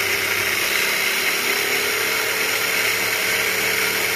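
A 1:8 electric RC monster truck's motor and drivetrain spinning the wheels freely in the air on a 4S LiPo at part throttle. It makes a steady whine whose pitch creeps up slightly and then holds.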